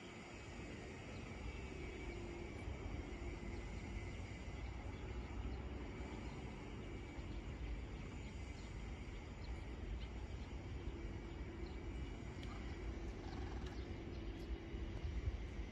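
Steady outdoor background noise: a low rumble with a faint steady high-pitched buzz above it and a few faint ticks.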